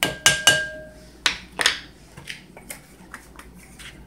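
Measuring spoon tapped against the rim of a mixing bowl three times in quick succession, the bowl ringing briefly, then two more knocks and a few light clicks as the spoon and jar are handled.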